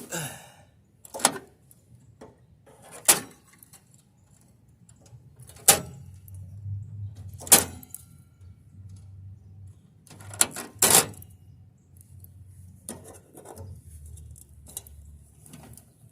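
Metal and plastic parts clicking and clinking as an appliance is pulled apart by hand and its wires are clipped: about eight separate sharp knocks at uneven intervals, with a faint low hum underneath in the middle of the stretch.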